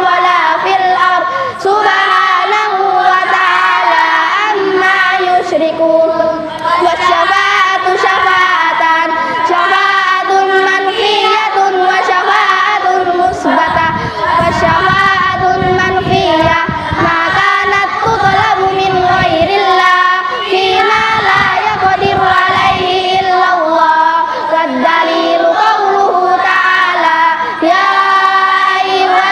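A group of children chanting an Arabic text in unison, a sing-song group recitation with a steady rhythm. A low rumble runs under the voices for several seconds in the middle.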